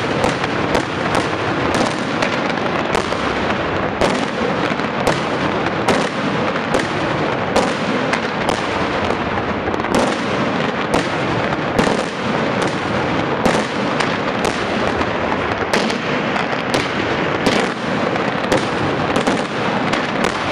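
Daytime fireworks display: a dense, continuous crackle of firecrackers, broken by sharp bangs about once or twice a second.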